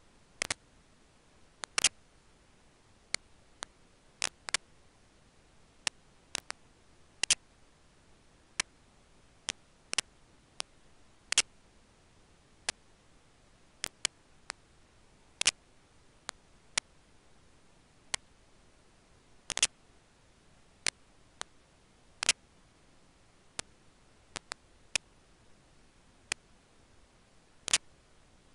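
Sharp, irregularly spaced clicks, about one a second, some much louder than others, over a faint steady hiss.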